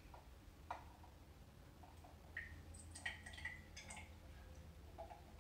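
Faint clinks and drips as a copper(II) chloride solution is poured from one glass container into another: a few small taps about a second in, then a cluster of light clicks and brief ringing tones a couple of seconds later.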